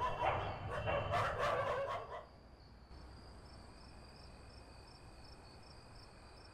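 A dog barking and howling for about two seconds, which then stops. Faint, evenly repeated insect chirping follows, like crickets at night.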